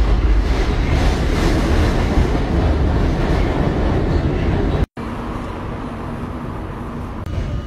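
Loud rumble of a subway train running through an underground station. It cuts off suddenly about five seconds in and gives way to a quieter, steady station hum.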